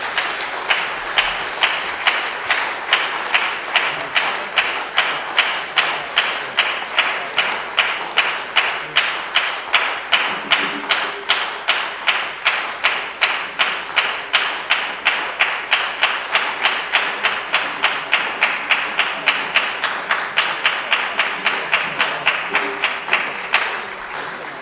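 Audience applauding, clapping in unison at a steady beat of about two and a half claps a second.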